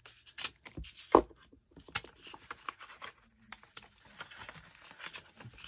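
Paper being folded and handled on a cutting mat, with light rustling, scraping and scattered ticks, and one sharp knock about a second in.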